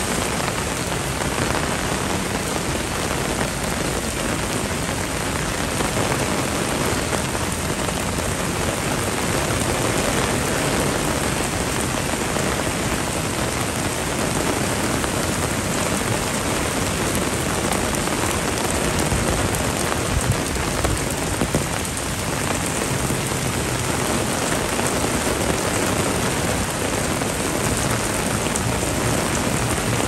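Heavy typhoon rain pouring down steadily.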